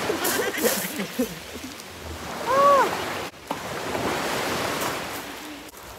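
Sea waves washing and splashing against shore rocks, a steady rush of surf, with short voice fragments and a brief exclamation partway through.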